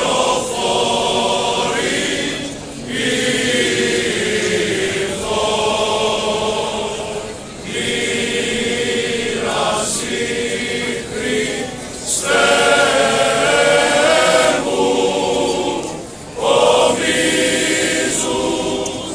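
Male choir singing an Orthodox Good Friday hymn in harmony, in long held phrases with short breaks between them.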